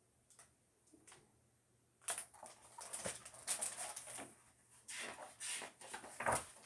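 Paper pages of a hardback picture book rustling and crackling as the book is handled and a page is turned. A dense, irregular run of crackles starts about two seconds in, after a few faint clicks.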